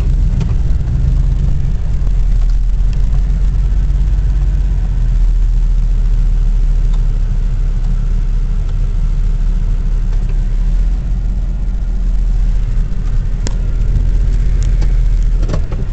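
Truck driving off-road: a steady low engine and drivetrain rumble, with a couple of sharp knocks near the end.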